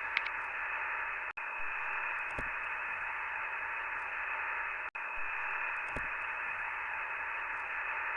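Steady hiss of narrow-band static, like noise on a radio or phone line, with two brief dropouts, about one and a half seconds and five seconds in.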